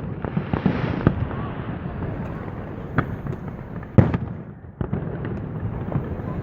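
Aerial fireworks display: a series of sharp bangs from shells bursting overhead, the loudest about four seconds in, over a continuous rumble of further bursts.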